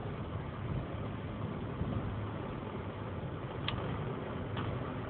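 Volvo 850R's turbocharged five-cylinder engine and road noise, heard inside the cabin while cruising steadily at about 110 km/h, with no rise in revs. Two faint clicks near the end.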